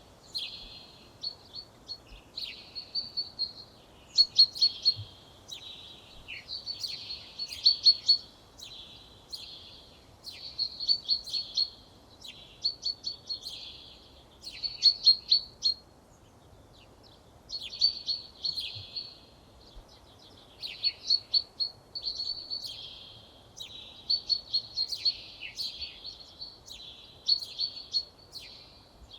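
Songbirds singing outdoors: short, high phrases repeated one after another with brief pauses, over a faint steady background hiss.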